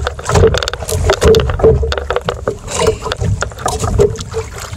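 Choppy sea water slapping and knocking against the hull of a small outrigger fishing boat, irregular sharp knocks over a steady wash.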